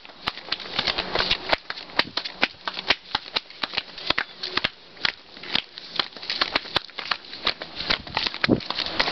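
Footsteps of several people in flip-flops walking on a concrete path: sharp, irregular slaps and clicks of the sandals, several a second.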